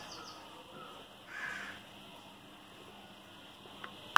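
A crow caws once, a harsh call about a second and a half in. A single sharp knock near the end.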